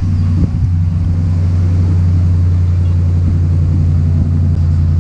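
Dodge Ram 1500 pickup idling steadily through a newly installed Magnaflow cat-back dual exhaust, just after starting, with a loud, even, low drone.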